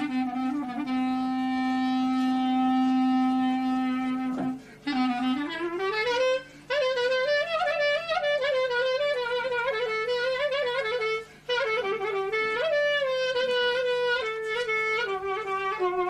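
Solo clarinet playing a free-rhythm taksim improvisation: a low note held for about four seconds, then ornamented phrases that climb and wind with slides and quick turns, broken by three brief pauses.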